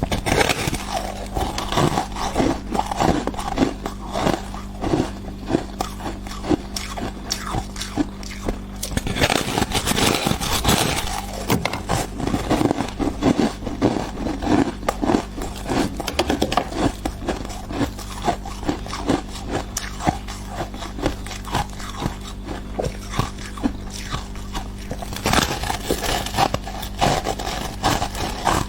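Thick, crumbly frost ice inside a freezer being scraped and bitten off: a dense, irregular run of crisp crunches and crackles.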